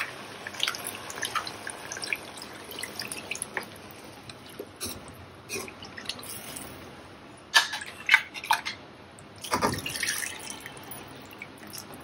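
Thin coconut milk poured from a glass jug into a pot of stew, splashing and dripping over the first few seconds; then a metal ladle stirring the stew, with a few louder clinks and scrapes against the pot later on.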